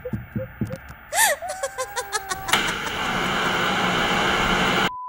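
Analogue television static: a loud, steady hiss that starts about halfway through and cuts off abruptly near the end into a steady high test-tone beep. Before it come a few sharp clicks and a short rising-and-falling chirp.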